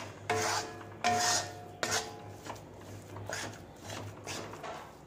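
Metal spatula scraping and stirring a thick millet-flour, ghee and jaggery dough (bajra sukhadi) in a heavy-bottomed iron kadhai, off the heat. The strokes are irregular rasps, about one or two a second, and the first few carry a faint metallic tone.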